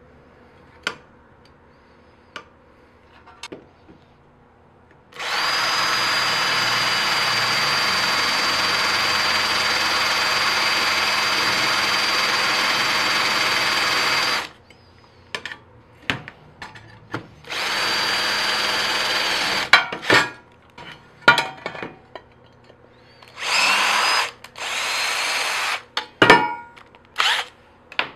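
Cordless drill running in aluminium angle: one long steady run of about nine seconds with a high whine, then a shorter run and two brief bursts near the end, with clicks and knocks of handling in between.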